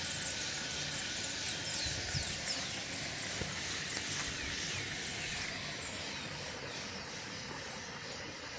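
Steady rushing of a waterfall, with birds chirping over it in short falling calls.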